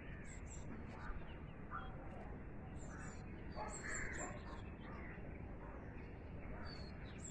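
Birds calling: scattered short, high chirps, with a louder, harsher and lower call about four seconds in, over a steady background rumble.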